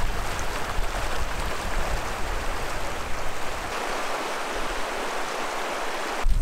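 Shallow, fast river running over stones: a steady rush of water, with splashing from wading through it and a low rumble in the first few seconds.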